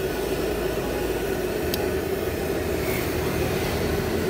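Batagor fritters deep-frying in a wok of hot oil, a steady sizzle as spoonfuls of tapioca-starch batter are dropped in, with one light click near the middle.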